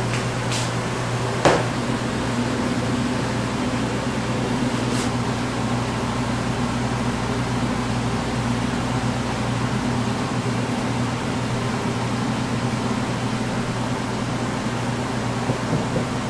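A steady mechanical hum and whir, like a motor or fan running, with a few short clicks in the first seconds and another about five seconds in.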